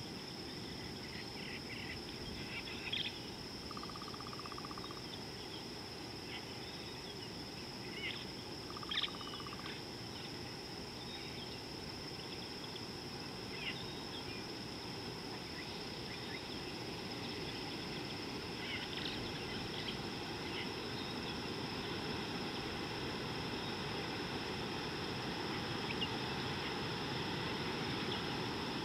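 Bush ambience: a steady high-pitched insect drone over a low, constant rush of background noise, with a few short bird chirps scattered through.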